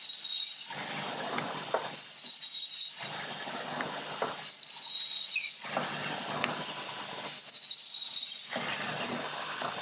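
Thompson 400 meat bandsaw cutting through a frozen block of T-bone steaks: a gritty cutting noise about a second long, repeated about every two seconds as each slice is pushed through, with a steady high whine between the cuts.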